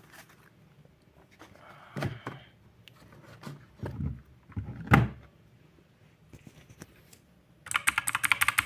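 Handling noise from a mechanical keyboard being moved about on a desk: several separate dull knocks and thumps, then near the end about a second of rapid clicking, some dozen clicks a second.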